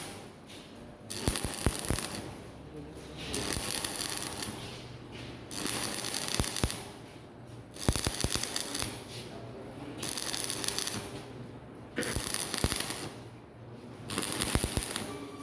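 Stick arc welder laying short welds, crackling and hissing in about seven bursts of roughly a second each, about two seconds apart.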